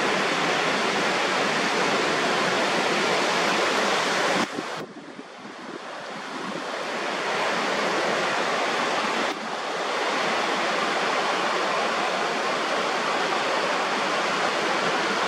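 Ocean surf breaking on an offshore reef, a steady rushing wash. It drops away suddenly about four and a half seconds in and builds back up over the next few seconds.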